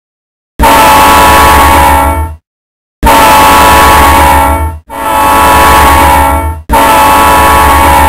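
Train horn (multi-chime air horn) sounding a chord in four loud blasts of about two seconds each, the first three parted by short silences, the last two nearly back to back.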